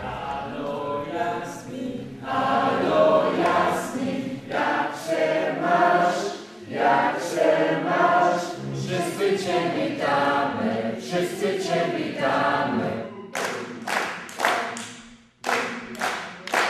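A group of voices singing together, unaccompanied, with a run of sharp claps in the last few seconds.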